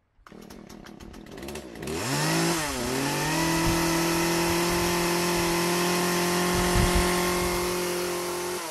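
Chainsaw sound effect: a rapid ticking idle, then the engine revs up about two seconds in, dips once and climbs again to a steady high-pitched running that eases off slightly near the end.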